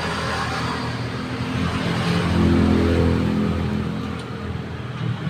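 Road traffic: a motor vehicle's engine passing close by, swelling to its loudest about halfway through and then fading, over a steady traffic hum.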